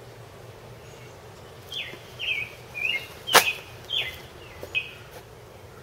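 A bird chirping: a run of about six short, high, falling chirps over about three seconds. One sharp click about midway, the loudest sound.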